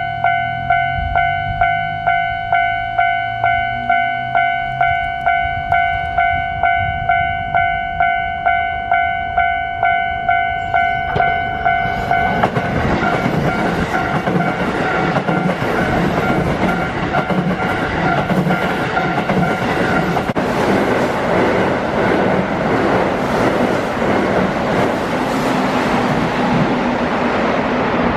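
Level crossing warning bell ringing in an even, repeated clang about one and a half times a second, then a Keihan 3000 series electric train passing close by from about 12 seconds in, its wheels clattering rhythmically over the rail joints and drowning out the bell.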